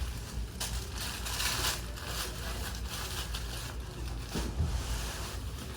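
Packaging around a pair of shoes being handled and pulled open by hand: irregular rustling with scattered louder crackles.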